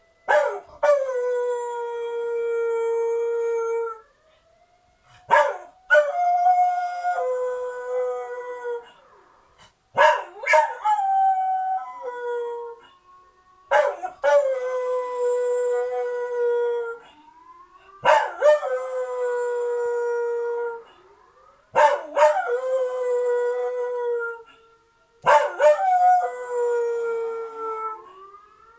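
A dog howls in a series of about seven long howls, roughly one every four seconds. Each starts with a sharp cry that slides down in pitch and then holds a steady note for two to three seconds. The howling is set off by emergency sirens.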